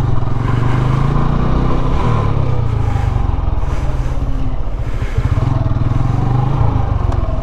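TVS Apache RTR 160's single-cylinder four-stroke engine running at low revs as the motorcycle rolls slowly, a steady rapid pulsing of the exhaust.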